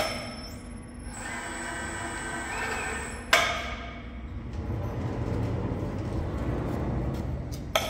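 Electric hoist running as it lifts a heavy chromed steel cylinder rod out of a lathe chuck on a sling, with a low rumble in the second half and a sharp knock a little over three seconds in.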